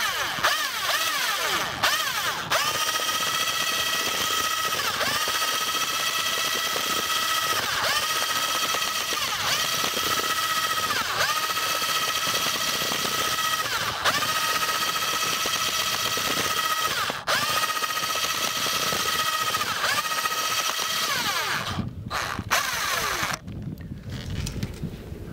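Electric drill mixing groundbait: the motor whines steadily at high speed, its pitch dipping briefly about every second and a half as the load catches, and it stops near the end.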